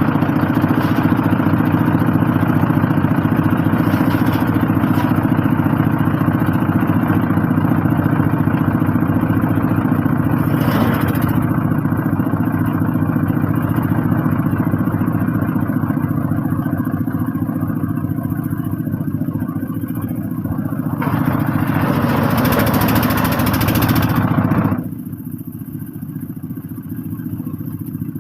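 Wood chipper's engine running steadily under power. A harsher, louder noise joins briefly about eleven seconds in and again for several seconds from about twenty-one seconds; near twenty-five seconds the sound drops suddenly and the machine runs on noticeably quieter.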